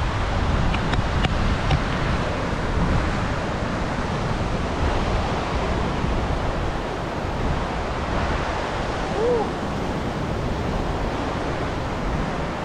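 Sea surf washing steadily onto a beach, with wind buffeting the microphone as a low rumble.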